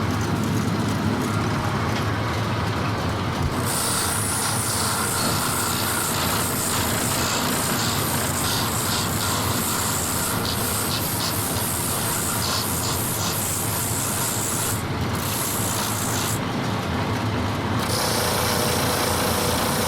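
A steady mechanical rumble, like a large vehicle, with a loud hiss that starts suddenly about four seconds in and cuts out briefly twice near the end.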